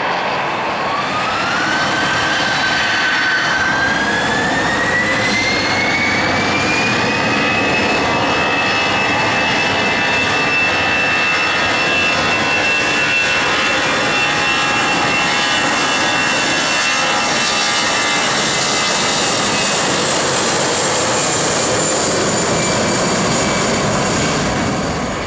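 Airbus A320-family airliner's twin jet engines spooling up to takeoff thrust: a whine rises in pitch over the first several seconds, then holds steady over a loud jet roar through the takeoff roll.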